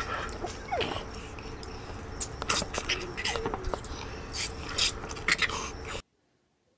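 A baby's short giggles and squeals over outdoor background noise, breaking off suddenly into near silence about six seconds in.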